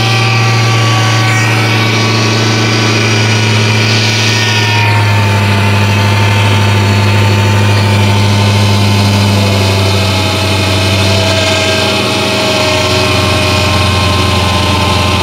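Dodge Challenger Hellcat's supercharged 6.2-litre HEMI V8 idling steadily, its tone shifting slightly about five seconds in.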